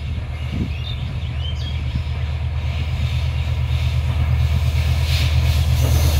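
Diesel locomotive's engine drone, low and steady, growing louder as the train approaches along the track, with a few bird chirps about a second in.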